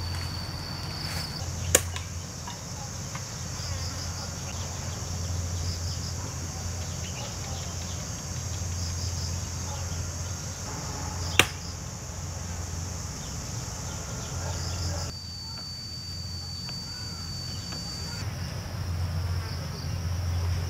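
Forest insects buzzing and chirping steadily in a high band, with a low steady hum underneath. Two sharp clicks stand out, one about two seconds in and one about eleven seconds in.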